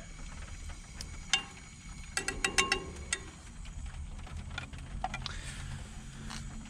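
Sharp clicks and clinks of a plastic spoon knocking against a metal saucepan and a tin can, with a quick cluster of about five a little over two seconds in and a few single ones around it. A low steady hum runs underneath.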